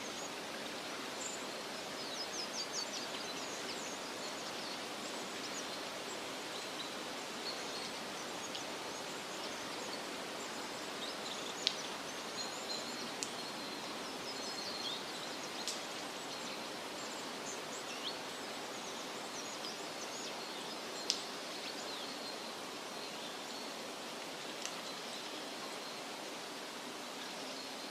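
Forest ambience: a steady rushing background hiss with small birds chirping high and thin throughout, and a few short, sharp louder notes.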